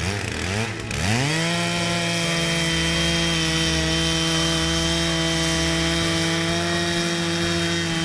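Stihl chainsaw revving up in two quick rising sweeps, then running steadily at full throttle as it rip-cuts a board lengthwise from a squared log.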